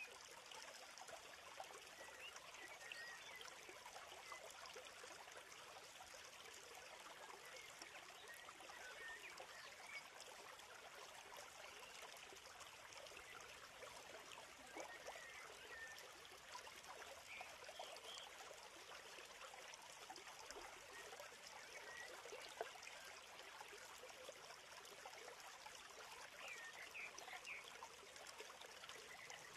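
Near silence: a faint, even hiss with no distinct events.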